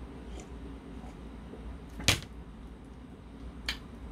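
Sharp click about two seconds in and a softer one near the end, over a low steady room hum, while beer is drunk from a glass mug.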